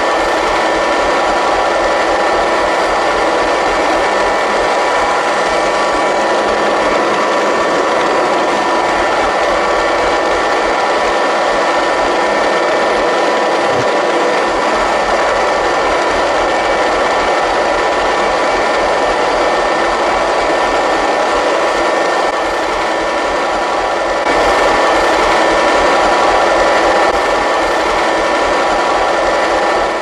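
Robot vacuum cleaner running: a loud, steady motor whir with a constant high whine over it, dipping briefly and picking up a little louder about three quarters of the way through.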